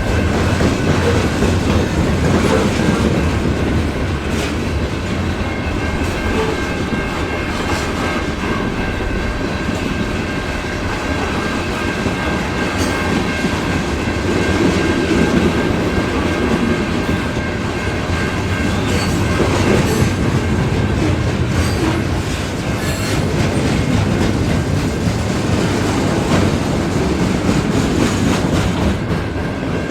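Freight train cars rolling past on the rails: a steady loud rumble and rattle of wheels with scattered clicks over the rail joints, and a thin steady high squeal from the wheels held underneath.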